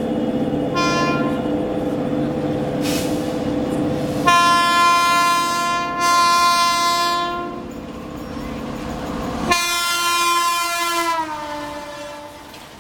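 WAP4 electric locomotive's air horn sounding three times: a short toot about a second in, a long blast from about four to seven and a half seconds, and a third blast near ten seconds whose pitch drops as the speeding express passes. Under the first two blasts runs a steady low hum that stops about nine and a half seconds in.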